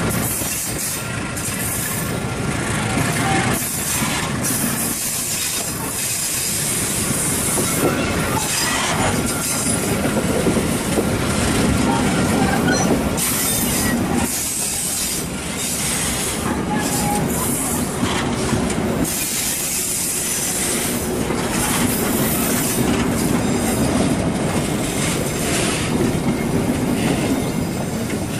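Passenger coaches of an Indonesian train rolling past close by: a steady, loud rumble of steel wheels on rail with clattering over the rail joints and a faint wheel squeal at times.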